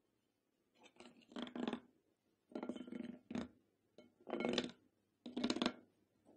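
Spatula stirring a runny glue slime mixture with foam beads in a glass bowl, in four separate wet strokes that scrape against the glass.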